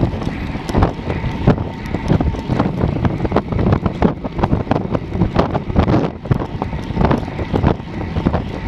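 Wind buffeting the microphone of a handlebar-mounted action camera on a road bike at about 35 to 40 km/h, over the rumble of narrow road tyres on asphalt. Frequent small knocks and rattles come from road vibration.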